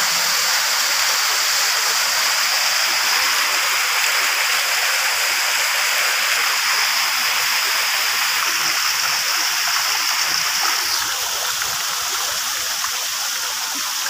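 Waterfall's falling water rushing steadily, a little duller from about eleven seconds in.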